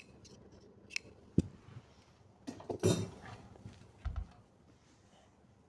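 Small scissors snip once at the start, clipping into the curved neckline seam allowance. Then come cloth rustling and a few soft knocks as the fabric is handled on the work table, with the loudest rustle about three seconds in.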